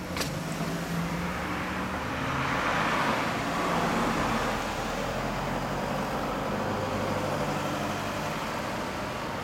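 A motor vehicle passing close by, its noise swelling about two to four seconds in and slowly fading over a steady low hum of traffic; a sharp click just at the start.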